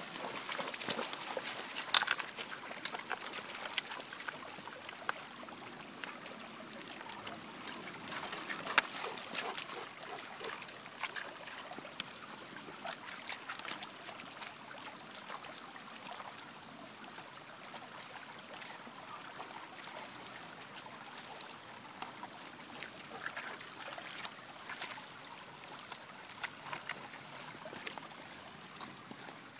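Shallow water trickling over gravel, with two Weimaraners gnawing and tearing at a piece of wood: scattered cracks and knocks, the sharpest about two seconds and nine seconds in, fewer toward the end.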